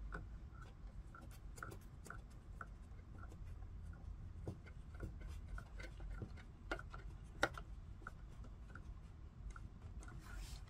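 Faint, scattered small clicks and rubbing from wires and twist-on wire connectors being handled and turned in an outlet box, with one sharper click about seven seconds in.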